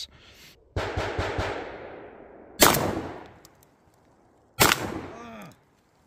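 Three shotgun blasts from a gas-operated Remington 1100 12-gauge semi-automatic, about two seconds apart, each echoing away. The second and third are the sharpest and loudest.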